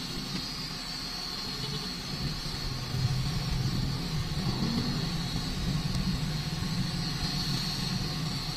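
Car engine and road noise heard from inside a moving car's cabin, a steady rumble that grows louder about three seconds in.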